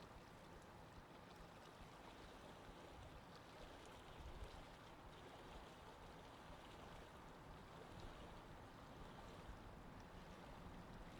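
Faint, steady wash of water, close to silence.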